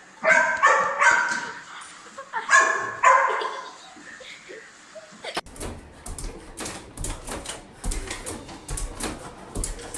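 A dog barking out two drawn-out, pitched calls near the start. After a cut about five seconds in, they give way to a quieter run of clicks and knocks.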